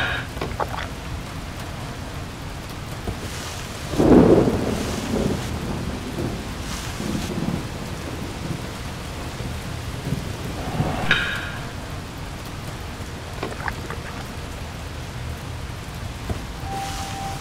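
Steady rain falling, with a roll of thunder swelling about four seconds in and fading slowly. A short pitched sound comes through around eleven seconds, and a steady tone enters near the end.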